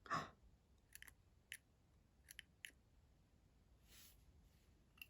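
Faint, scattered small clicks and taps from handling a mechanical pencil, some in quick pairs, after a brief soft sound at the start, against near silence.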